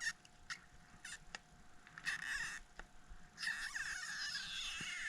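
iPhone 6S battery adhesive pull tab being stretched out from under the battery: a few light clicks, then squeaky, crackling stretching sounds, a short burst about two seconds in and a longer one from about three and a half seconds on.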